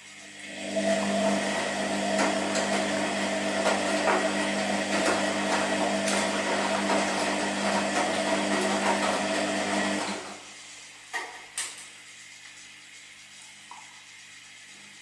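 Washing machine turning its drum for about ten seconds, a steady hum over a rushing noise, then stopping abruptly, as in the stop-and-go turning of a wash cycle. Two short clicks follow, then a low steady hum.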